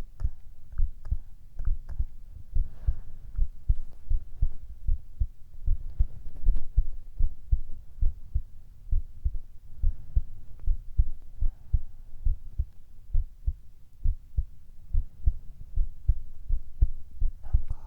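Human heartbeat heard close up, a steady, regular run of low thumps.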